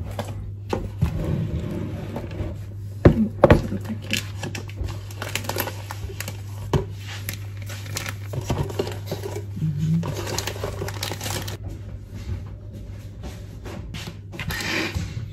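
Kitchen handling sounds: scattered knocks and clatter with some crinkling and scraping, over a steady low hum.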